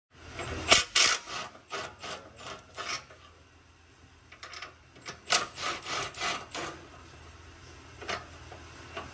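Socket ratchet working the 15 mm exhaust flange nuts, clicking and rasping in short irregular bursts with a lull in the middle.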